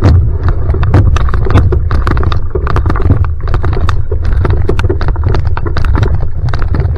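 Single outrigger canoe (va'a) paddled hard in a sprint start: rapid paddle strokes splashing and spray striking the hull and camera, many sharp irregular splashes over a loud steady low rumble.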